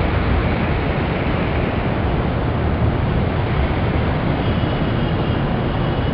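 Steady rushing outdoor noise: wind buffeting the microphone over the constant hum of city traffic far below.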